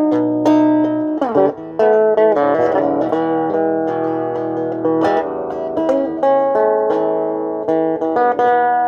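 Guitar played solo: single notes and chords plucked with sharp attacks, with a couple of sliding or bent notes about a second and a half in and again near the end.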